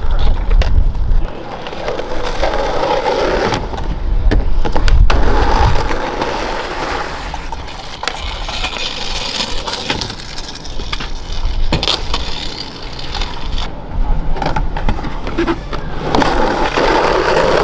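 Skateboard wheels rolling on pavement, with several sharp clacks of the board hitting the ground as tricks are popped and landed.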